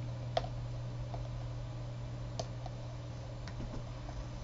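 A few faint, sparse clicks and taps of makeup containers being handled on a tabletop, over a steady low hum.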